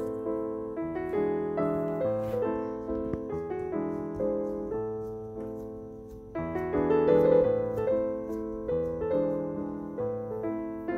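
Background piano music: a melody of struck notes and chords, each note dying away, growing louder about six seconds in.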